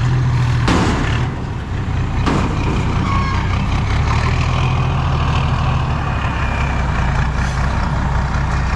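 Diesel dump truck engine running steadily with a loud exhaust, with two short bursts of hiss about one and two seconds in.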